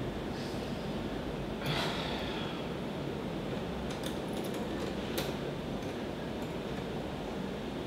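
A short, sharp exhale about two seconds in, then a couple of sharp metallic clicks about four and five seconds in as a metal door's handle or lock is worked, over a steady background hum.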